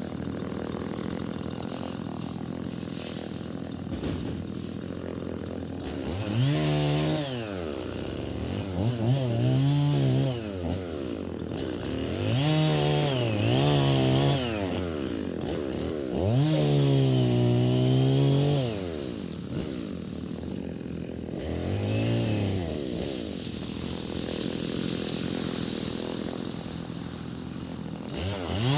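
Two-stroke chainsaw idling, then revved up five or six times for a couple of seconds each, dropping back to idle in between, as it cuts up a fallen tree.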